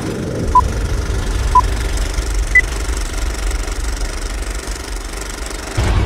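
Vintage film countdown leader sound effect: short beeps a second apart, the last one higher in pitch, over the steady clattering rumble of an old film projector. Music comes in near the end.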